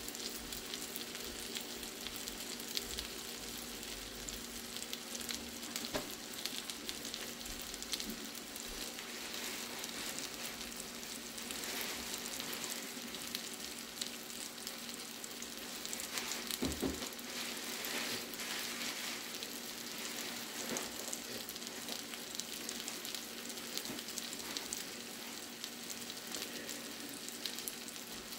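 Halibut steaks and cherry tomatoes sizzling in garlic butter in a frying pan: a steady crackle with scattered small pops.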